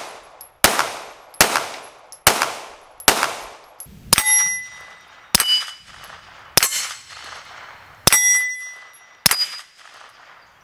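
Springfield XD-M Elite pistol firing nine shots, about one a second. The first four are unsuppressed and echo. The last five are fired with a SilencerCo Omega 36M suppressor fitted, and several are followed by steel plate targets ringing.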